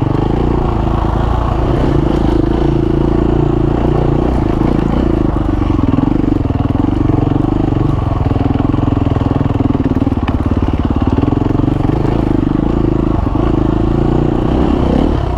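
Husqvarna FE 350 S single-cylinder four-stroke dirt bike engine running at low, fairly steady revs while the bike rides slowly down a rough trail.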